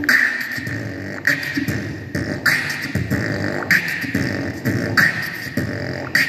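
A child beatboxing into a microphone, heard through loudspeakers: rhythmic mouth percussion with a sharp accent about every second and a quarter.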